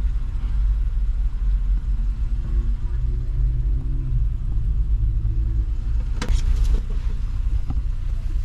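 Steady low rumble of a Honda car pulling forward, heard from inside the cabin, with a short burst of sharp clicks about six seconds in.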